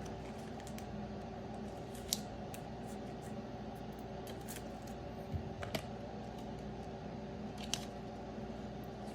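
Steady low hum with a handful of short, faint clicks and scrapes of trading cards and their hard plastic holders being handled.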